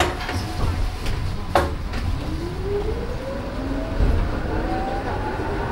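Esslingen GT4 articulated tram pulling away. Its traction motors whine, rising steadily in pitch as it gathers speed, over the low rumble of the car running on the rails. A sharp knock comes at the start and another about a second and a half in.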